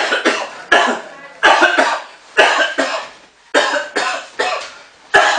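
A man coughing in a repeated fit, a string of about eight harsh coughs spaced roughly half a second to a second apart.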